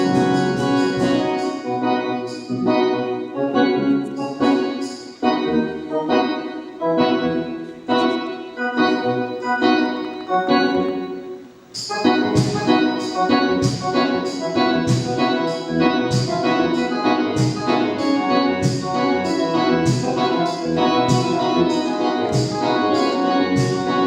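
Solo keyboard with an organ-like sound, playing sustained chords. The chords come slowly for about the first half, drop away briefly, then return as brighter chords repeated about twice a second.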